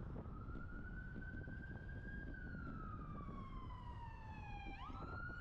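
An emergency vehicle's siren wailing: its pitch rises, falls slowly for a couple of seconds, then sweeps quickly back up near the end. Underneath is a steady low rumble of wind on the microphone from the moving bike.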